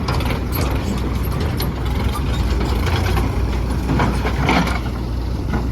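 Heavy diesel engine running steadily, with a few short metallic clanks and knocks, the loudest about four and a half seconds in.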